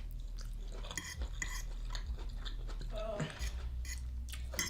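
Close-up eating sounds: chewing, with short clicks of cutlery against a plate.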